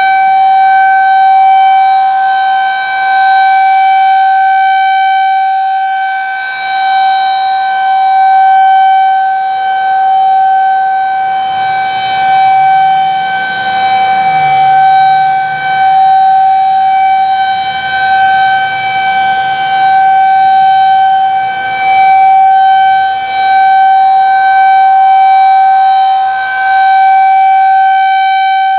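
Federal Signal 2001-SRN rotating electromechanical warning siren holding one steady tone during a three-minute test. The sound swells and fades every few seconds as the rotating horn sweeps toward and away from the listener.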